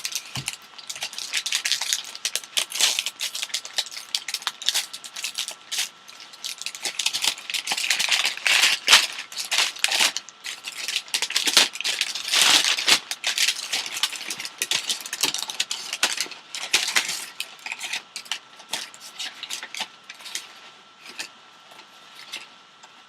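Packaging being handled and unwrapped: a continuous run of crinkling, rustling and small clicks that comes and goes in bursts.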